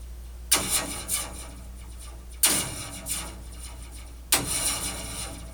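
Metal slinky hung from sheet-metal heating ductwork, set vibrating three times about two seconds apart. Each time it gives a sharp zap that rings down over about a second: the laser-like sound effect, with the ductwork acting as a resonance chamber that amplifies it.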